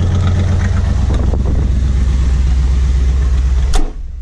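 Chevy 350 small-block V8 running through its straight-piped dual exhaust with a steady, deep note. Near the end a sharp knock, after which the engine sounds quieter.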